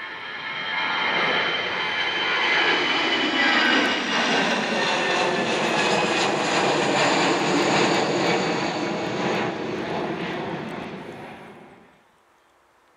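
Airbus A320-family airliner's twin jet engines at takeoff power as it climbs out overhead: a loud rushing roar with whining tones that slide down in pitch as it passes, swelling over the first couple of seconds and dying away near the end.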